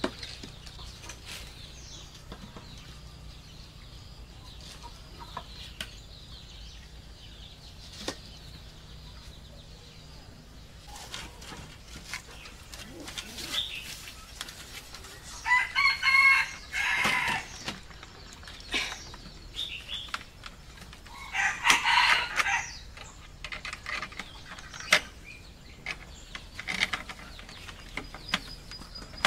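Chickens calling: a rooster crows about halfway through, and another loud call comes some six seconds later. Scattered light knocks of wooden poles being handled run underneath.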